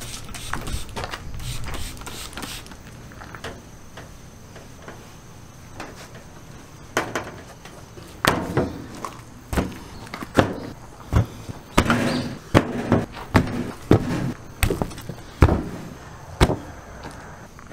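A short stretch of wiping on a stainless steel tabletop at the start, then, from about eight seconds in, a run of sharp slaps and knocks as raw tomahawk steaks and a metal tray are handled and set down on the steel table.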